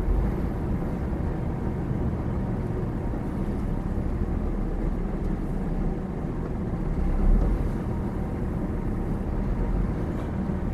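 Scania R450 truck's diesel engine running as the truck drives slowly, a steady low rumble heard inside the cab, briefly louder about seven seconds in.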